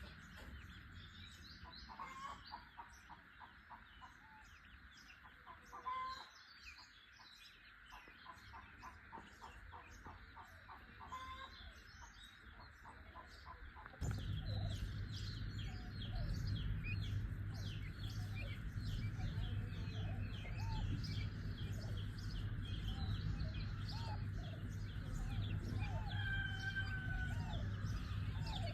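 Chickens clucking among many small birds chirping. About halfway the level jumps suddenly and a steady low hum comes in under the calls.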